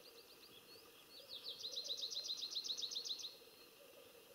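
Songbird singing: a few short falling notes, then a fast, even trill of about ten notes a second that lasts about two seconds and stops abruptly.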